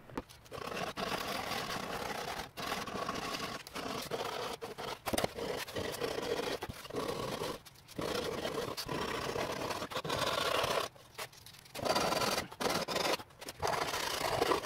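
Sandpaper rubbed by hand along the edges of a walnut board, in runs of scraping strokes broken by short pauses.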